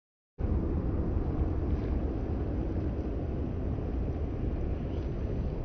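Wind rumbling on the microphone, a steady, fluctuating low rumble that cuts in abruptly about half a second in after dead silence.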